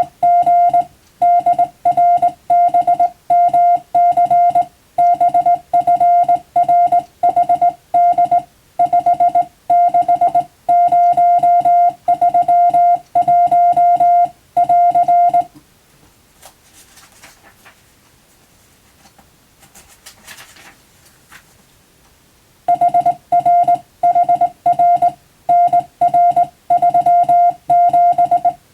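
Morse code (CW) tone: a single steady beep keyed in dots and dashes, sending English-text telegram practice. About half way through it stops for some seven seconds, leaving only faint rustling, then resumes.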